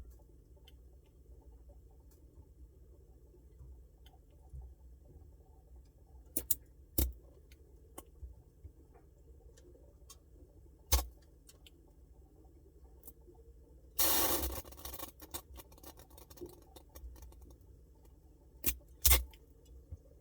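Samsung Bespoke refrigerator running with a low steady hum, broken by sharp clicks or cracks: a pair about a third of the way in, a single one near the middle, a second-long crackle a little later, and two more near the end.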